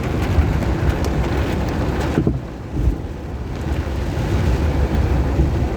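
A vehicle driving through floodwater: a low rumble under a steady rush of water noise, with wind buffeting the microphone. The rush eases for about a second a little over two seconds in.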